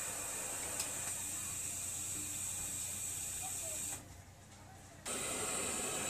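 TIG welding arc hissing steadily as a tack weld is laid on a corner of a thin sheet-steel box with a Stahlwerk CT 520 P inverter welder. The arc cuts off about four seconds in and strikes again about a second later.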